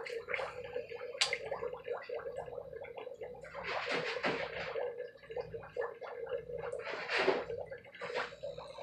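Water splashing and sloshing as a Cuvier's dwarf caiman thrashes with a live rat it has just seized, with scattered small knocks and two louder surges of splashing partway through.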